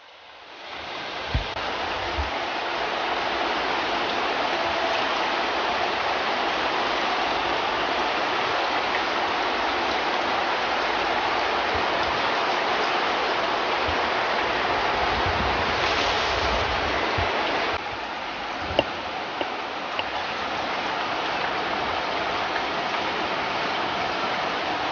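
Greenhouse water-curtain system: groundwater sprayed between the inner and outer plastic films and running down the plastic in a steady rush of water. It is holding the greenhouse above freezing with groundwater at about 15 °C. The sound swells in over the first two seconds and drops a little about two-thirds of the way through.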